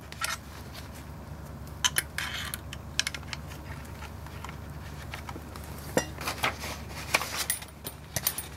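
Scattered small clicks and light metallic taps as a Leica M3 camera body and a disassembly tool are handled around the rewind knob, more of them near the end.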